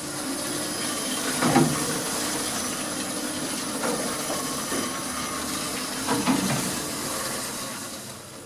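Otis Gen 2 lift car travelling in its shaft, heard from on top of the car: a steady running noise with hiss, two louder knocks about one and a half and six seconds in, and the noise dying down near the end.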